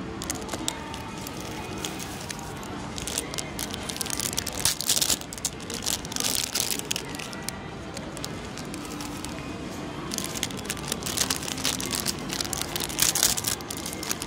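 Plastic candy-packet wrappers crinkling as they are handled, in irregular bursts, heaviest about a third of the way in and again in the last few seconds, over faint background music.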